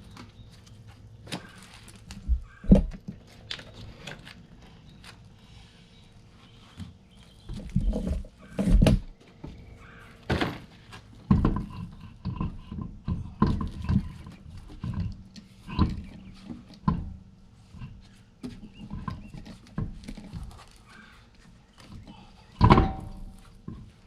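Irregular knocks, thuds and scrapes of hands working with parts and tools at a pickup truck's front wheel, with several louder thumps scattered through.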